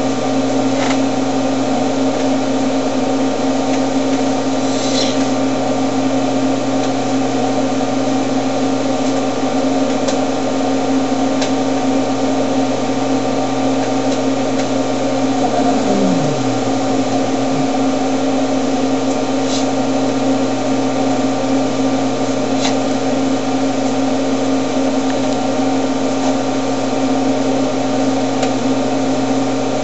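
A loud, steady machine-like hum made of several steady tones, unchanging throughout and covering any quieter sounds.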